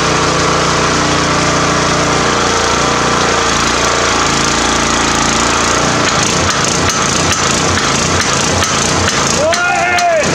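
Homemade tyre-drive power hammer driven by a 7 horsepower petrol engine: the engine runs steadily, and about halfway through the ram starts clattering up and down in a fast, even rhythm.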